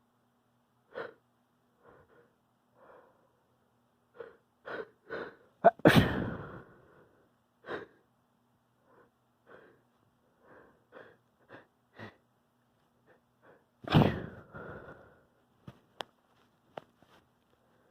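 A person sneezing twice. Each sneeze follows a run of short catching breaths that come faster just before it. The first, about six seconds in, is the loudest; the second comes about eight seconds later.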